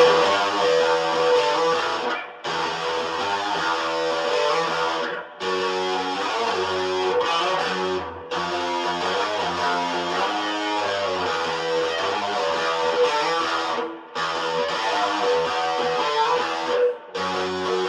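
Electric guitar played through a Crate G40C XL combo amp: ringing chords and riffs that stop sharply for brief breaks about five times.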